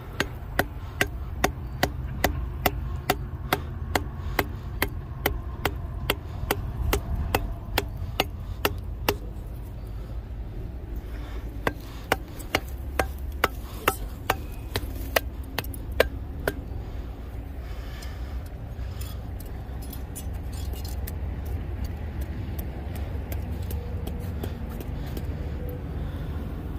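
A stake being hammered into the ground to anchor a beaver trap. The blows come about two a second for roughly the first nine seconds, then slow to scattered blows that die out around sixteen seconds in.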